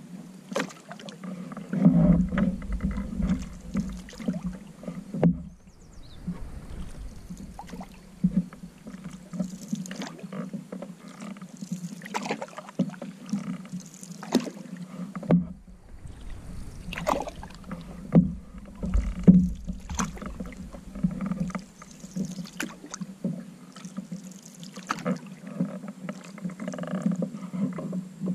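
A canoe being paddled on a river: paddle strokes splashing and water lapping against the hull, with irregular knocks and splashes every second or two. A deep rumble comes and goes twice.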